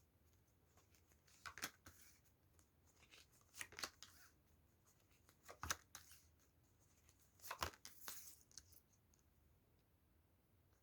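Faint papery snaps and rustles of a tarot deck being handled and shuffled, in four or five short bursts about two seconds apart.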